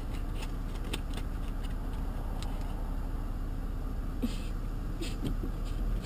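Car engine idling as a steady low hum in the cabin, with light clicks and crackles of a paperboard sandwich box being opened and handled.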